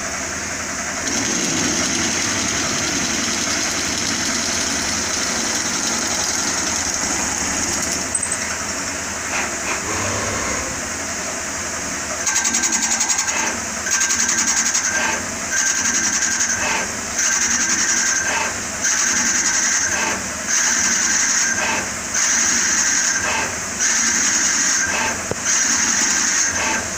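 Small CNC lathe running: the spindle and pneumatic chuck spinning with a steady high whine while a tool cuts the workpiece. From about the middle on, the cutting comes and goes in a regular rhythm, about every second and a half.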